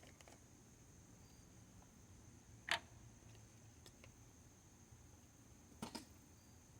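Near silence with two brief sharp clicks, the second a quick double, about three seconds apart.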